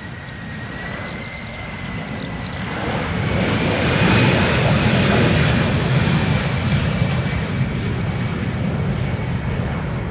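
Boeing 737-500's two CFM56-3 turbofan engines at takeoff thrust during the takeoff roll and liftoff. The noise swells to a peak about four seconds in as the jet passes, then eases a little, with a steady high whine throughout.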